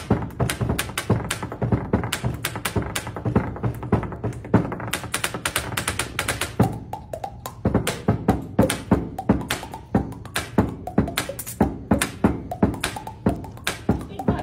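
Hand drumming on a wooden office desk top: quick taps and knocks played in a steady, busy rhythm as a percussion beat.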